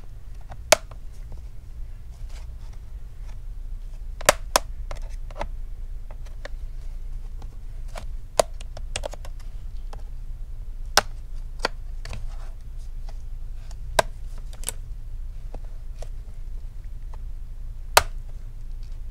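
Retaining clips of an HP x360 14m laptop's bottom cover snapping loose as a metal pry tool works around the seam: sharp clicks at uneven intervals, a few much louder than the rest, over a steady low hum.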